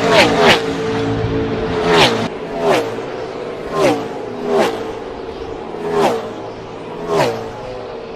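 NASCAR Gen 6 stock cars with V8 engines passing close by one after another, about eight times, often in pairs. Each pass is a sharp rush whose engine note drops in pitch as the car goes by, over a steady engine drone.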